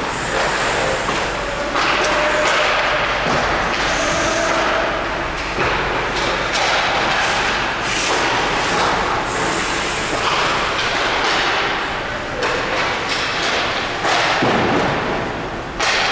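Repeated thuds and knocks of hockey pucks and play striking a goaltender's pads, stick and the rink boards, over a steady noisy din of an ice rink.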